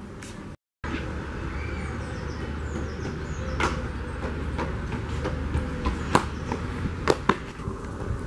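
Running footsteps on stone paving and steps, a few sharp footfalls standing out over steady outdoor noise and handheld-camera rumble. The sound cuts out for a moment near the start.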